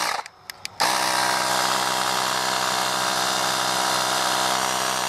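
DBPower 12V portable tire-inflator air compressor running unloaded with its hose free: a steady electric motor and pump hum. It cuts out at the start, two clicks sound, and it starts again just under a second in, then runs at an even level.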